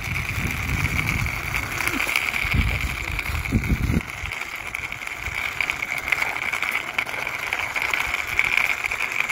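Plastic toy car pushed by hand along a rough concrete wall: its wheels and axles make a steady, fast clicking rattle. There is a low rumble during the first four seconds.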